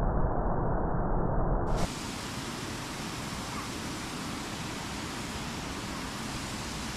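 Water pouring over a low concrete weir, a steady even rush. For the first two seconds a louder, muffled rushing noise plays, then cuts off abruptly to the clearer rush of the falling water.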